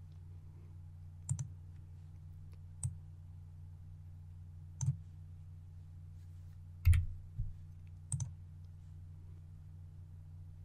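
Computer mouse clicking: about six short, sharp clicks spread out, some in quick pairs, the loudest about seven seconds in, over a steady low hum.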